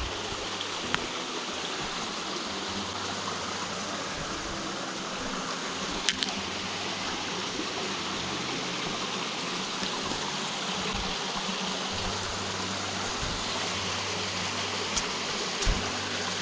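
Steady rush of flowing stream water, with a couple of brief sharp clicks about six seconds in and near the end.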